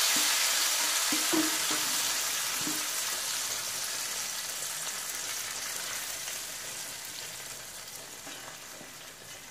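Hot rendered sheep's-tail fat with fried garlic and dried mint sizzling as it is poured into a pot of cooked yogurt, the hiss fading away steadily as the fat cools.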